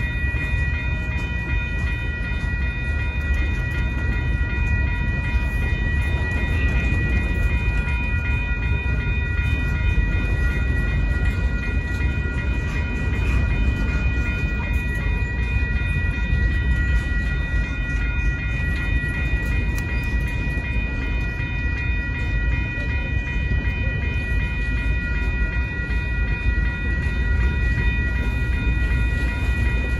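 Freight cars (boxcars and covered hoppers) rolling steadily past on the rails, a constant low rumble of wheels and cars. Over it a grade-crossing bell rings on without a break, a cluster of steady high tones.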